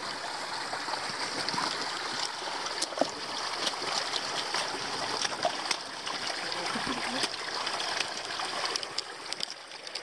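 Running water, a steady rush with many scattered small clicks and splashes.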